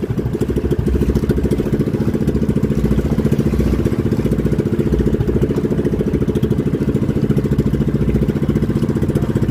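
Small outrigger boat's engine running steadily at a constant speed, with a fast, even throb.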